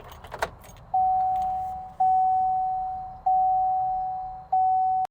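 A pickup truck's warning chime: four identical single-tone dings about a second apart, each fading away, ended by a sharp click. Keys jingle and click briefly at the start.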